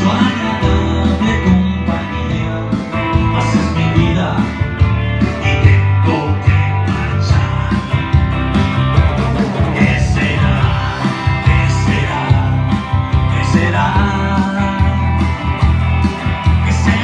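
Live pop-rock song played on a solid-body electric guitar through an amplifier, over a steady beat.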